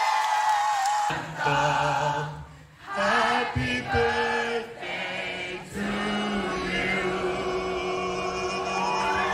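Live concert music heard from the crowd: singing voices over held, sustained tones. The sound briefly drops away about two and a half seconds in.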